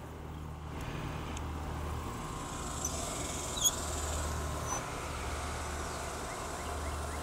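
Water spraying from a hose onto a motorcycle during a rinse, a steady hiss over a low steady hum, with one sharp click about halfway through.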